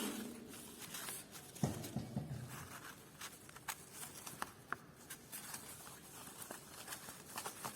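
Faint scattered clicks and light scratching, with a brief low sound about one and a half seconds in.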